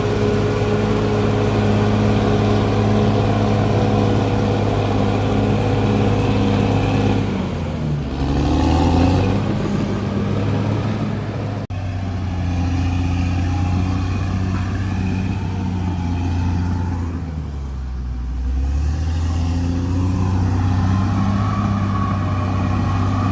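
CAT D6R XL bulldozer's diesel engine running steadily under load. Twice the engine note sags and then climbs back, about a third of the way in and again past the middle, as the engine lugs down and recovers.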